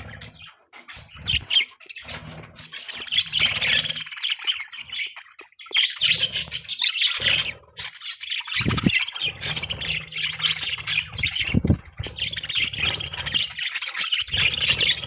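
Budgies chirping and chattering in busy, broken bursts with squawks mixed in, pausing briefly in the middle. A low rumble comes and goes underneath.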